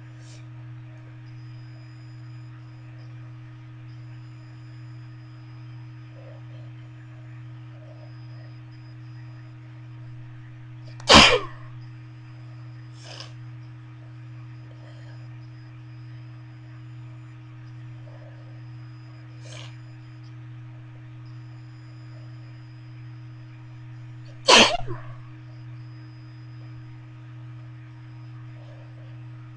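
A person sneezing twice, about thirteen seconds apart, each a single loud, sharp sneeze. A steady low hum runs underneath.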